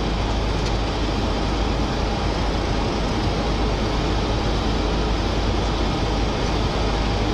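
Steady flight-deck noise of a Boeing 737-400 on final approach with gear down and flaps at 30: a constant rush of airflow over a low rumble, holding an even level throughout.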